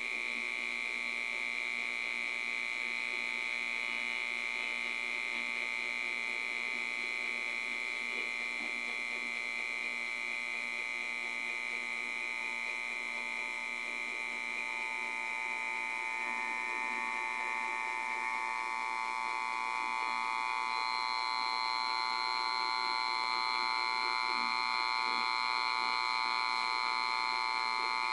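Mini solid-state Tesla coil kit powered on, giving off a steady high-pitched electrical buzz made of several fixed tones. From about halfway through, lower and higher tones join and it grows slightly louder.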